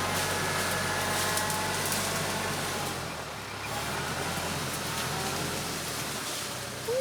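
Tractor's diesel engine running steadily, with its low note dropping a couple of times as the load or throttle changes, and a brief squeal right at the end.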